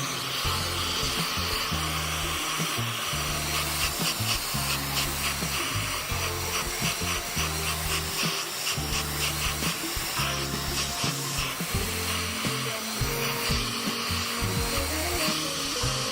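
Background music with a steady, stepping bass line, over a continuous high hiss like a blower or small power tool running.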